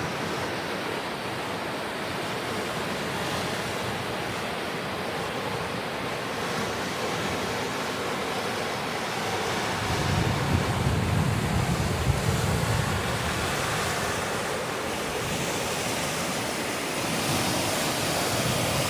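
Steady rushing of high wind, with a gust buffeting the microphone for a few seconds about ten seconds in.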